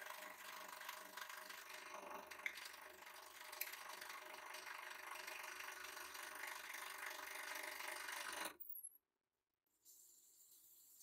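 Hydraulic press running with a steady mechanical hum as its ram crushes a plastic pipe, with a couple of sharp clicks from the pipe giving way. The sound cuts off abruptly near the end and comes back much fainter.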